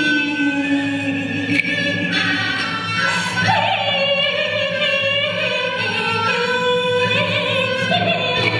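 Yue opera singing by a female performer: slow, drawn-out sung phrases with vibrato on long held notes, over the steady accompaniment of the opera band.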